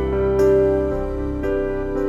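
Background music: soft new-age style keyboard music, with a new chord struck about half a second in.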